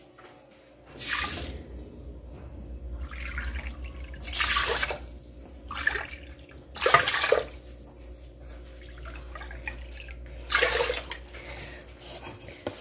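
Water poured from a cup into an aluminium pot over raw rice, in about four separate pours: four cupfuls of water being added to cook the rice.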